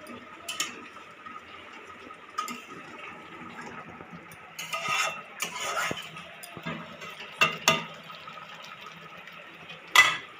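A long metal spatula stirring a thick crab curry in an aluminium kadai: scraping runs about halfway through, with sharp clanks of metal on the pan, two close together, and the loudest clank near the end.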